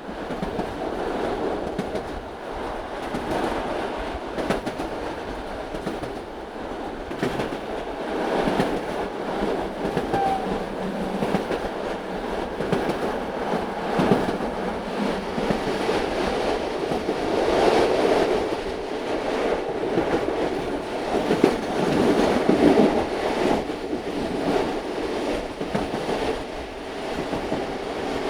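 Old train running on the rails: a steady rumble overlaid with irregular clacks and knocks of the wheels and cars, swelling louder a little over halfway through.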